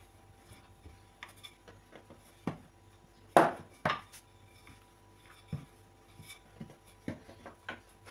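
Wooden rolling pin knocking and rolling on a floured board as dough is rolled out and lifted: a scattering of short knocks, the loudest two coming close together about three and a half seconds in.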